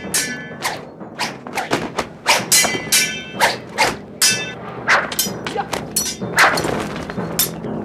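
Swords clashing in a fight: a quick, irregular run of about twenty sharp metallic clangs, two to three a second, many of them ringing briefly after the strike.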